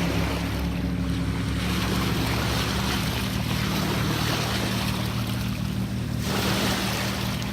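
Small lake waves washing against a rocky shoreline, with wind buffeting the microphone and a steady low drone underneath. The wash drops away briefly near the end.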